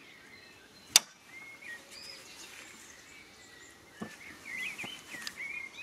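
An articulated double welding magnet snapping onto a steel bar with one sharp metallic click about a second in, then a couple of fainter knocks as it is settled in place near the end. Birds chirp in the background.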